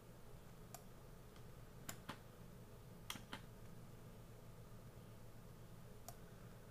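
About six faint, sharp clicks of computer controls, scattered irregularly over a low steady hum in otherwise near silence.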